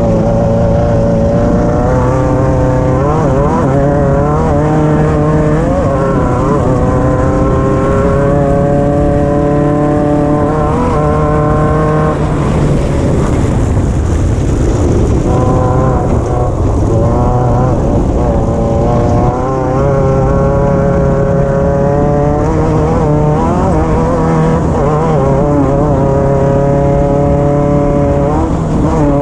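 Race car engine heard from inside the car, revving up and falling back again and again as it is driven hard through gears and corners, with a brief lull about halfway through.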